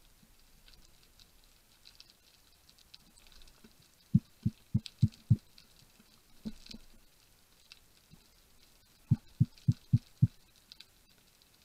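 Underwater ambience heard through a diving camera: a faint, constant crackle, with two runs of five quick, low knocks at about four a second, a few seconds in and again near the end.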